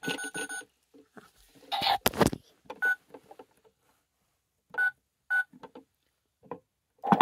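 Buttons on a toy washing machine being pressed: clicks and several short electronic beeps. Near the end the toy's small motor starts up with a steady whir.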